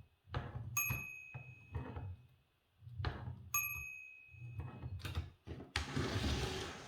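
Margin bell of a 1947 Olivetti MP1 portable typewriter ringing twice, a short high ding each time, about three seconds apart. Between the dings come clunks and knocks of the typewriter's mechanism, and a rattling slide near the end.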